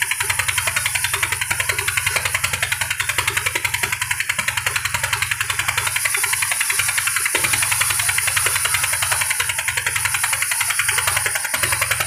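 Large vertical band saw (aara machine) running as a log is pushed through its blade, a loud steady drone with a fast, even pulsing.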